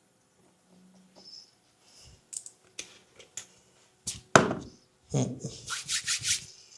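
Hand strikes and clicks of a head massage: a few light clicks, one loud sharp crack a little past the middle, then a quick run of slaps and taps near the end.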